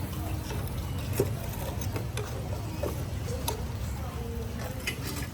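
Busy street-market ambience: faint background voices over a steady low rumble, with scattered sharp clicks and taps a few times.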